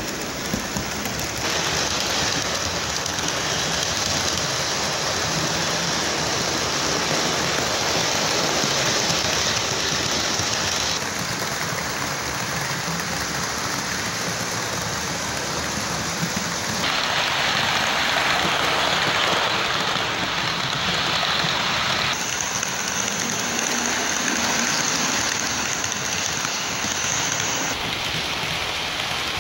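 HO-scale model trains running on the layout's track: a steady rushing rumble of wheels on rail and motor, its tone shifting abruptly several times.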